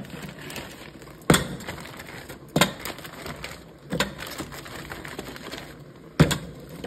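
Chunks of frozen yuca dropped one at a time into a cooking pot: four hard, separate clunks a second or two apart.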